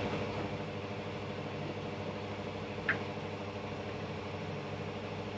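Steady low background hum of room tone, with one faint short click about three seconds in.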